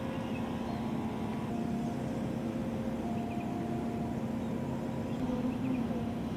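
Diesel locomotive of an approaching passenger train, a steady engine drone with a low hum and a few faint high chirps.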